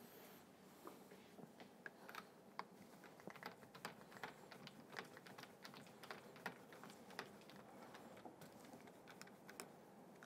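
Faint, irregular small clicks and ticks of metal parts being worked on a Marzocchi MX Comp suspension fork, as its leg is held under slight tension and the stubborn bottom nut, which turns with the damper shaft, is undone.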